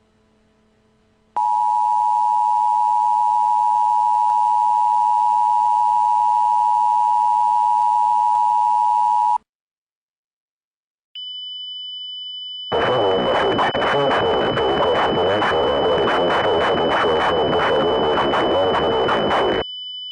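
Emergency Alert System attention signal: two steady tones sounded together for about eight seconds, after a second of near silence. After a pause, a steady high tone starts, and a loud, noisy, crackling sound joins it for about seven seconds.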